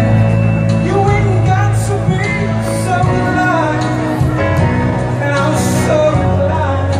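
A man singing into a handheld microphone, amplified, over backing music; his voice glides and bends through held notes.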